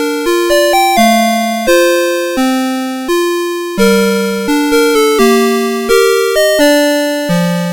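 Citizen Melody Box 30 series alarm clock playing one of its built-in electronic alarm melodies: a simple two-part tune in bright, buzzy chip tones. Each note strikes sharply and fades, with a new note about every half second.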